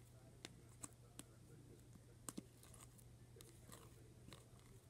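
Sticky slime being handled: faint, sharp clicks and pops, about seven scattered over a few seconds, over a low steady hum.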